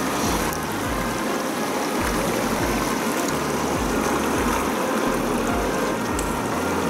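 Mountain stream rushing steadily, with the held low notes of soft background music underneath.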